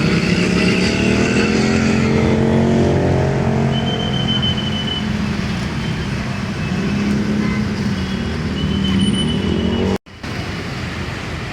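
Road traffic with a vehicle engine running close by, its pitch dipping and rising early on, then steady; the sound cuts out for a moment about ten seconds in. No telolet horn is heard.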